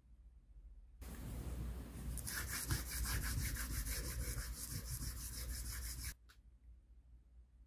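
Brisk back-and-forth rubbing of a small hand-held pad over the flesh side of a leather piece, burnishing it after Tokonole has been applied. It starts about a second in, turns into fast, even strokes a second later, and stops about six seconds in.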